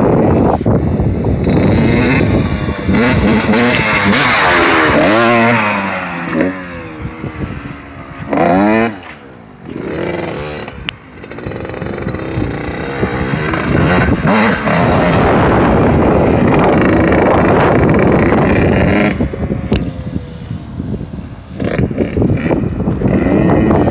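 Suzuki RM125 two-stroke dirt bike engine revving up and down repeatedly as it is ridden, with a brief drop in loudness a little before halfway.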